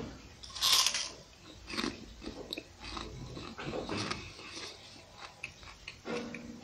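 A person biting into a raw red onion with one loud crunch about a second in, then chewing it, with many small crunches and wet clicks.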